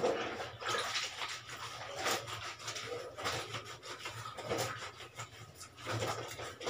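Soapy wet white clothes scrubbed by hand in a plastic basin, the fabric rubbed against itself in a run of uneven rubbing strokes.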